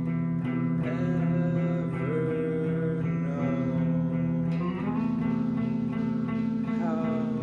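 Guitar-led rock music, an instrumental passage of held guitar chords over bass, changing chord about halfway through.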